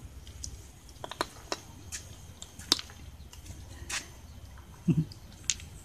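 Two kittens eating from a small plastic tub: scattered small sharp clicks and taps of chewing and of the tub, the loudest a little under three seconds in, over a low steady hum.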